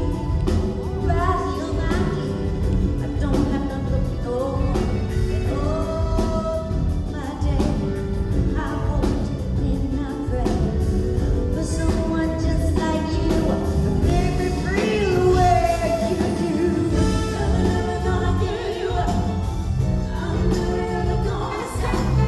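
Female lead vocalist singing a soul song with a live band of drums, electric guitar and saxophone, recorded from the audience in a concert hall.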